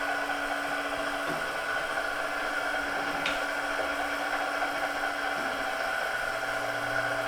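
Okamoto PSG 63 hydraulic surface grinder running an automatic cycle on a dry run: a steady machine hum, with a few short clicks about a second in and again around three seconds in.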